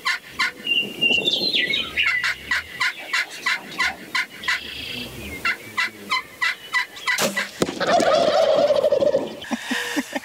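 Wild turkey gobblers gobbling repeatedly, each gobble a rapid rattling call. About seven seconds in there is a sudden sharp sound, followed by about two seconds of loud commotion.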